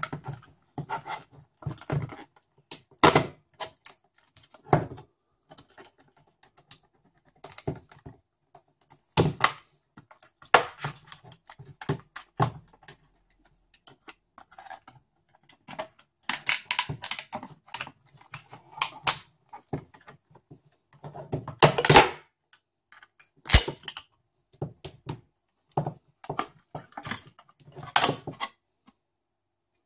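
Laptop battery pack being taken apart by hand: the hard plastic case and the red 18650 lithium-ion cells inside it clicking, knocking and rattling as the cell pack is pulled free and handled, in irregular bursts. The loudest is a sharp snap late on.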